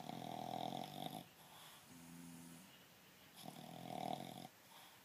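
Snoring: two loud, rough snores about a second long and some three seconds apart, with a softer breath between them.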